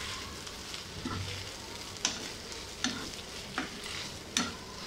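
Wooden spatula stirring and scraping a soft mashed-potato and fish filling in a hot nonstick frying pan, over a low sizzle of frying. There are a few sharp clacks of the spatula against the pan in the second half.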